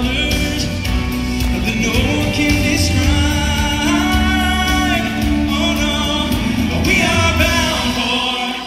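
Live gospel vocal group singing a song with a lead voice over acoustic guitars and band accompaniment. Shortly before the end the low accompaniment drops away, leaving mostly voices.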